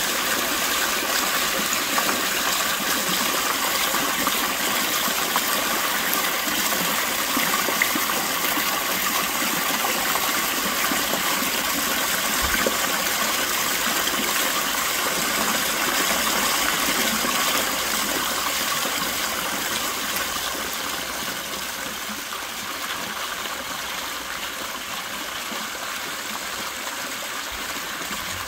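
Water from a stone artesian fountain pouring over a ledge and splashing onto rocks: a steady splashing rush that gets a little softer about two-thirds of the way through.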